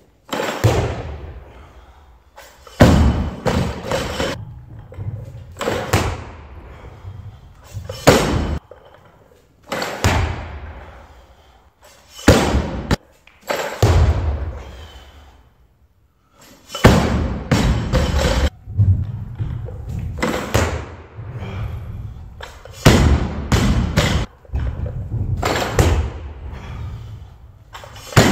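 Barbell loaded with rubber bumper plates repeatedly set down and dropped onto a wooden lifting platform during snatch training: heavy thuds every one to three seconds, each trailing off in bouncing and rattling of the bar and plates.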